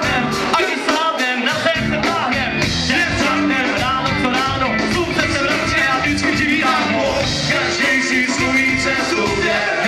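A live pop-rock band playing, with male voices singing into microphones over drums and electric guitar and a steady beat.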